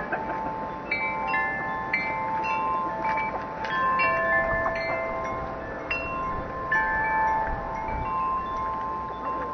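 Wind chimes ringing: clear tuned tones struck at irregular moments, each ringing on and overlapping the next.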